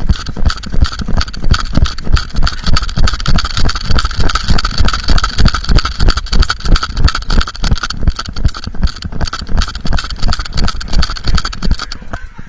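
An action camera strapped to a small dog knocking and rubbing in its harness in a steady rhythm, about three knocks a second, as the dog moves, with a steady high tone underneath. The knocking stops near the end.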